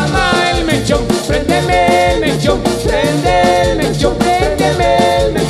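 Live tropical dance band playing an upbeat Latin dance tune, with a steady beat and a melody line over it.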